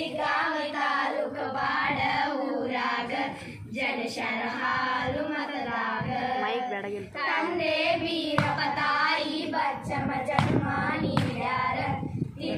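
A group of schoolgirls singing a Kannada devotional song together into a microphone, amplified over a loudspeaker, with short breaks between the sung lines.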